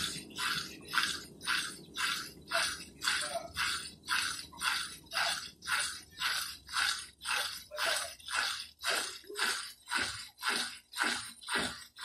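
Consul Cargo 8 kg top-loading washing machine spinning a load of blankets: a rhythmic swish about twice a second, once with each turn of the drum, over a low motor hum. The hum fades out about two-thirds of the way through while the swishes go on, slightly slower, as the drum coasts down at the end of the spin.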